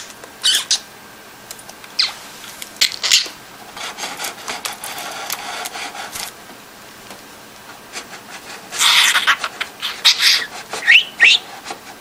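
Pet budgerigar chattering with short smacking "tsup" kiss sounds, then two quick rising chirps near the end.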